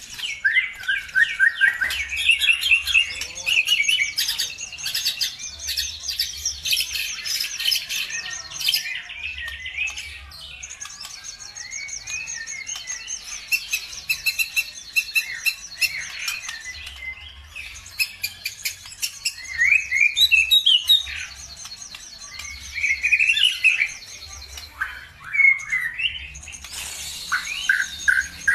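Small songbirds singing in rapid, dense chirps and trills, as in a bird-lure (pancingan) recording made to provoke caged birds into song. The song thins out about a third of the way in and comes back louder with sweeping phrases near the end.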